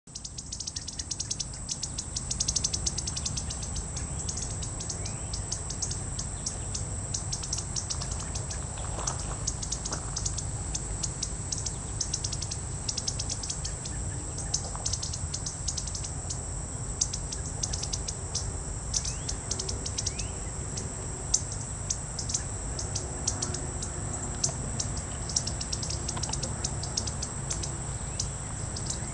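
Indigo buntings singing in short high chirping phrases over a continuous high, rapidly pulsing insect trill, with a steady low rumble underneath.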